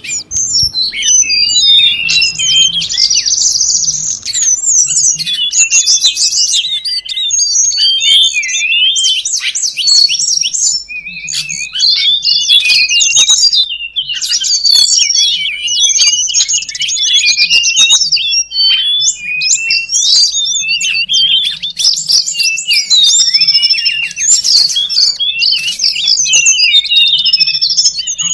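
Tledekan gunung birds calling in a busy, excited chorus on a lure recording: a continuous tangle of quick, high chirps and warbled notes that rise and fall.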